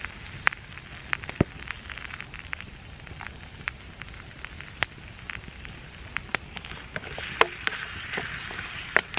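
Campfire crackling with sharp, irregular pops, over a light sizzle of onion, ginger and garlic frying in oil in a blued steel wilderness pan. Near the end a wooden spatula stirs the pan and the sizzle thickens.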